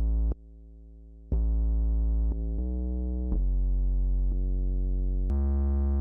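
Synth bass playing a string of held notes from a prepared test file, each note starting with a small click and lasting from about half a second to two seconds. The notes change pitch and loudness from one block to the next, with one much quieter stretch near the start. The bass runs through a compressor set to a 4:1 ratio, which turns down the parts above the threshold.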